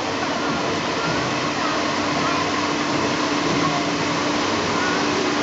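Type 40 suspended monorail car rolling past as it pulls into the station, with a faint low hum in the middle, under a steady hiss and faint voices.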